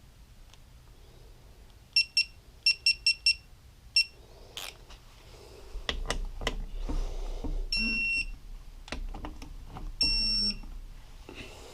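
Electronic beeping from a digital torque wrench: a quick run of short beeps, then two longer beeps, the long tone marking the set torque reached. Metal tool clicks and clatter come in between.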